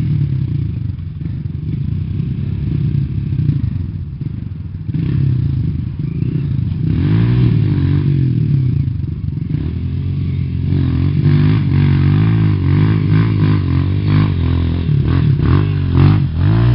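Off-road dirt bike engine revving again and again, its pitch rising and falling as the rider works up a rutted climb. It grows louder as the bike comes closer, with some clattering near the end.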